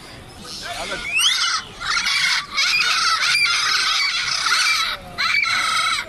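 Long, wavering high-pitched animal calls. One slides sharply upward about a second in, then a call runs almost unbroken for about two and a half seconds, with another near the end.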